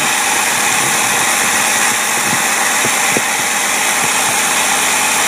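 Engine idling steadily on a Carter AFB four-barrel carburetor while the carburetor is fed 9 psi of fuel pressure, a test of whether the float and needle hold the fuel off.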